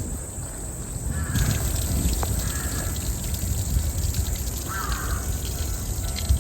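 A crow cawing a few times, roughly a second and a half in, again soon after and near five seconds in, over a steady low rumble of wind on the microphone.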